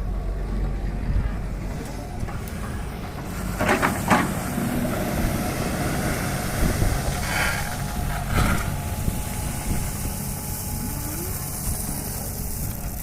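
Diesel engines of an excavator and a tipper truck running steadily, with a few louder noisy bursts of clatter and hiss about four seconds in and again around seven to eight seconds in.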